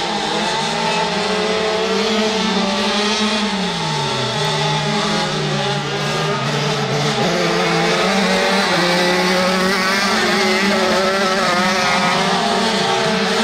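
Several 85cc two-stroke crosskart engines racing together, at high revs that dip about three seconds in and then climb again as the karts brake and accelerate through the corners.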